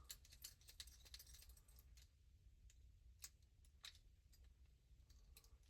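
Near silence, broken by a few faint, scattered clicks and light rattles.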